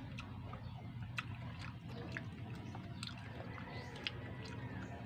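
Close-up chewing of ripe jackfruit flesh: soft, wet mouth clicks and smacks, scattered about once or twice a second, over a low steady hum.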